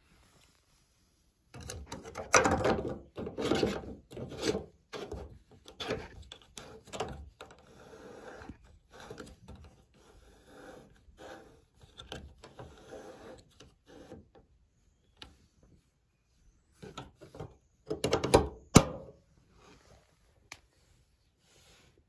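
Plastic lint filter of a washing machine's drain pump being pushed back into its housing and twisted home, the plastic scraping and rubbing in bouts. Near the end come a few knocks and one sharp plastic click.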